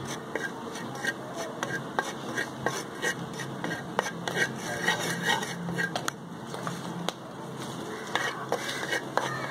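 Wooden spatula scraping and stirring dry coriander powder around a hot earthenware pan, with irregular short scrapes and clicks. The powder is being dry-roasted.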